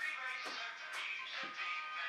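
Background music: a pitched melody, possibly with a singing voice, with light rhythmic strokes.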